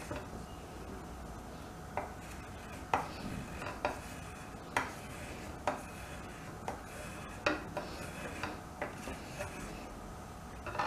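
Potato peeler shaving curls off a bar of chocolate, a short sharp scrape about once a second.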